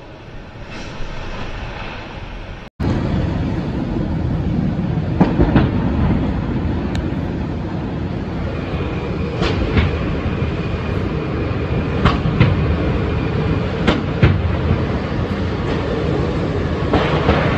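Propane fire from an overturned tanker truck burning with a continuous low roar, cut in loud after a short break about three seconds in, with sharp pops now and then.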